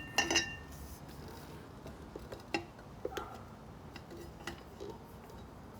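Scattered light metallic clicks and clinks from the motorcycle's exhaust header pipe and hardware being handled, with a brief ring of metal about a second in.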